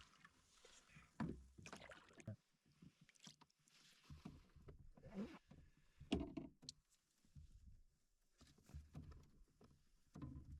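Faint, scattered knocks and splashes of a canoe being handled on the water, the louder ones about a second in and again around five and six seconds in.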